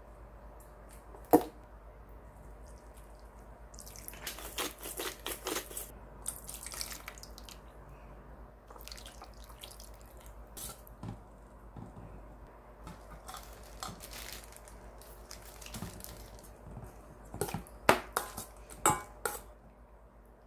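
Liquid seasonings poured into a stainless steel mixing bowl, splashing and dripping. There is a sharp knock about a second in, and a few clinks of a metal spoon against the bowl near the end.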